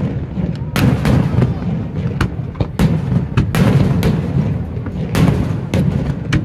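Aerial fireworks bursting: a string of sharp, irregularly spaced bangs, a dozen or so, over a continuous low rumble.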